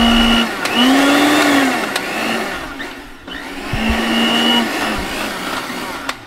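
Hamilton Beach countertop blender motor running on a jar of chopped peppers, onion, garlic and herbs for Haitian epis seasoning. The whirring eases off about three seconds in, picks up again, and cuts off just before the end.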